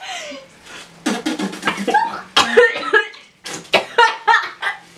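A woman coughing and laughing in short fits after eating a foul-tasting jelly bean, the canned dog food flavour.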